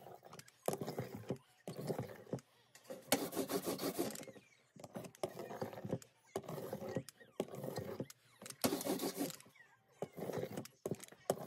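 A rubber brayer rolling printing ink onto a carved woodblock in repeated strokes, each about a second long, with short pauses between them. The block is being re-inked for a darker print.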